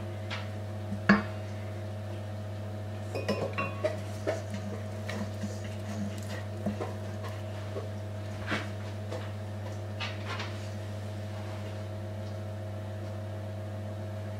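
Spatula scraping around a stainless steel mixing bowl of thick chocolate cake batter, with scattered knocks and clinks of utensils against the bowl. The sharpest knock comes about a second in, and all of it sits over a steady low hum.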